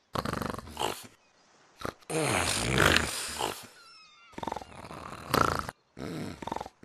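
Dog-like growls and gruff barks in short bursts, with a longer, louder rasping growl about two seconds in.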